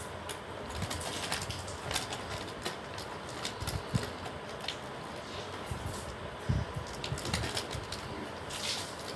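Clear plastic packets crinkling and rustling while gold-coloured jewelry is handled, with irregular light clicks and jingles from the metal pieces.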